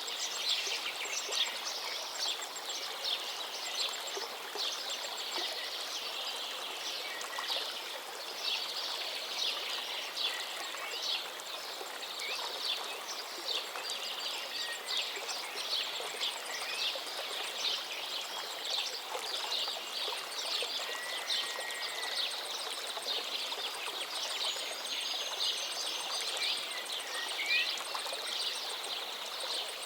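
A forest stream flowing steadily, with birds chirping and singing over it and a few clear whistled calls in the second half.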